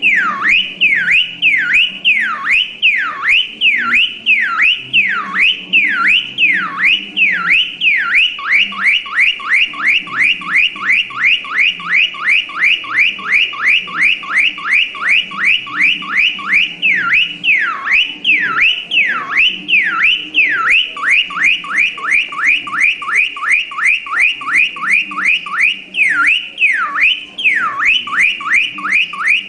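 Electronic car alarm siren: a tone sweeping up and down between a high and a lower pitch, switching between slow sweeps and a faster warble several times, then cutting off abruptly.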